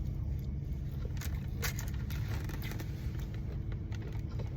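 Steady low rumble like a car cabin with the engine running, with a few faint short clicks over it.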